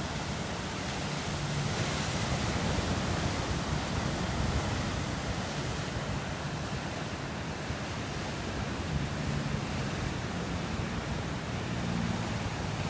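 Ocean surf breaking and washing on the shore, a steady rushing roar that swells and eases as the waves come in.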